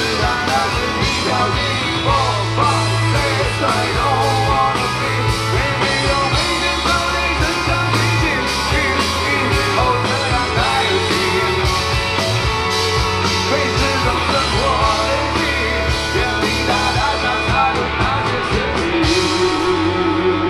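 Live rock band playing a song: drum kit keeping a steady beat under bass, electric guitars and a sung melody. Near the end the cymbals and drums drop away, leaving a single held note wavering in pitch.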